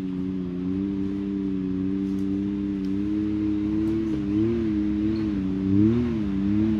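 Side-by-side UTV engine running at low revs, with two short rises in engine speed about four and a half and six seconds in.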